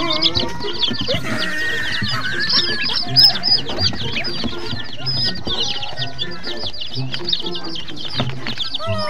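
A flock of young chicks peeping nonstop, a dense chorus of short, high, falling cheeps.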